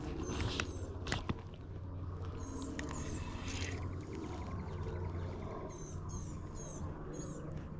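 Small bird chirping short, high, falling notes, mostly in pairs, a couple of times early on and several times near the end, over a steady low rumble, with a few sharp clicks in the first second and a half.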